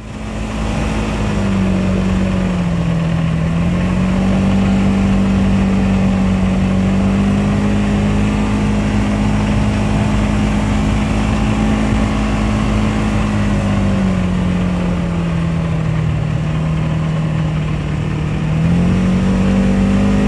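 Vehicle engine running steadily while driving a dirt road, with road noise underneath. Its pitch drops for a stretch about two seconds in and again from about fifteen to eighteen seconds, then climbs back.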